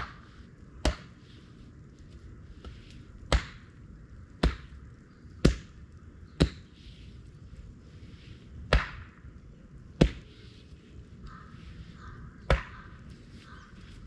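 About nine sharp chopping blows at uneven intervals, a hand tool striking wood.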